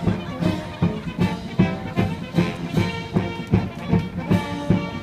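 Brass band music with a steady, fast drum beat, about two and a half beats a second.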